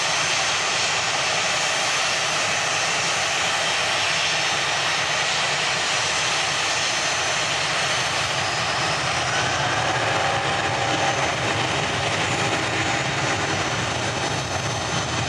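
Airbus A320-200 twin-engine airliner's jet engines running at high thrust on its takeoff roll: a loud, steady jet rush with a faint rising whine about two-thirds of the way through.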